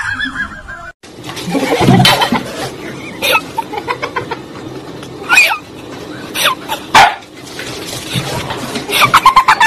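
A dog barking several times, sharp short barks spread out with a quick run of them near the end.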